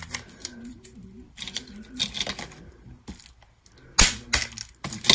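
Fingers handling a roll of washi tape on a tabletop: scattered light clicks and taps, with two sharper knocks about four seconds in.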